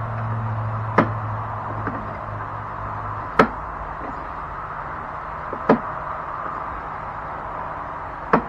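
Four sharp, short knocks spaced about two seconds apart, from tools and metal parts being handled during carburetor work on a riding-mower engine, over a steady background hum that stops about three seconds in.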